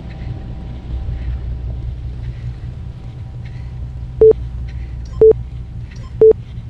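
A workout interval timer beeping a countdown: three short, loud beeps at the same pitch about a second apart near the end, signalling the end of a timed interval. Under it is a steady low rumble of wind on the microphone.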